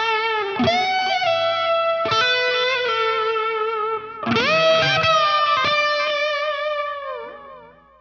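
Electric guitar through a Line 6 Helix overdriven ambient preset, playing a few long held notes with string bends and vibrato. A new note is struck about four seconds in, and the last notes ring out and fade away near the end.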